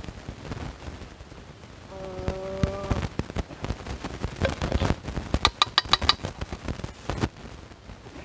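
Metal spoon scraping and knocking against a tin can of soup, with a quick run of sharp ringing taps on the metal about five and a half seconds in. A short hummed note of a voice comes about two seconds in.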